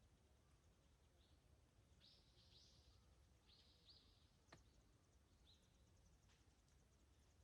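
Near silence: faint forest ambience with a few soft, high-pitched calls in the middle and a single faint click about four and a half seconds in.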